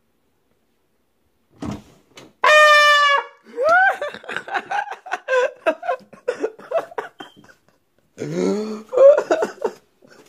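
A single loud trumpet blast, one steady held note lasting under a second, about two and a half seconds in. It is followed by a startled person's shrieking and shouting, in bursts.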